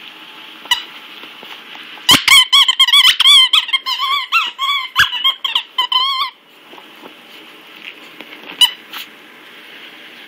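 A Yorkshire terrier chomping a squeaky toy ball, setting off a rapid run of short, wavering squeaks for about four seconds, then one more squeak near the end.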